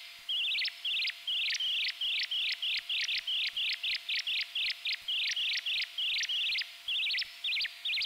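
Synthesized bird-like chirps from a Joranalogue Filter 8 filter self-oscillating, its pitch swept by an Orbit 3 chaos oscillator, with a touch of reverb. Short high chirps, each sweeping in pitch, repeat about two to three a second, quicken to three or four a second in the middle and slow again near the end, over a faint steady hum.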